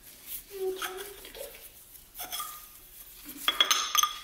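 A piston and tapered ring compressor scraping and clinking against an engine cylinder bore, pushing a piston ring farther down the bore to check its end gap. Scattered small scrapes and clicks lead to a cluster of ringing metal clinks near the end, the loudest part.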